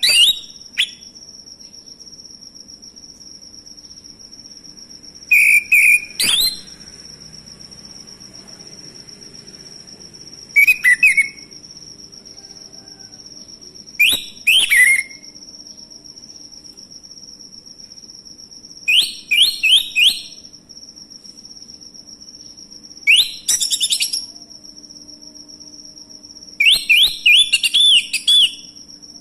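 Male orange-headed thrush singing loud, short phrases of varied whistled notes, about one every four to five seconds. A steady high-pitched whine continues underneath throughout.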